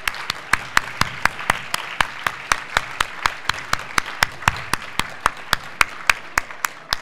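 Audience applauding, with one pair of hands clapping loudly and evenly close to the microphone, about four claps a second, above the crowd's clapping.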